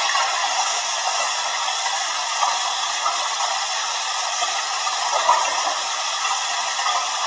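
Water pouring off a pool waterslide and splashing into the pool, a steady rush.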